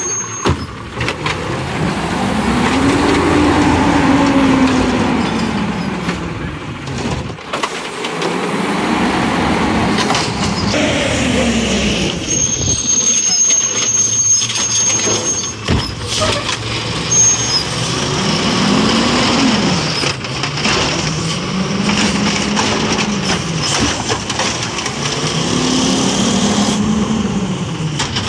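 Natural-gas automated side-loader garbage truck working its arm: the engine revs up and falls back five or six times, every few seconds, as it drives the hydraulics that grab, lift and dump the carts. A few sharp knocks come in between.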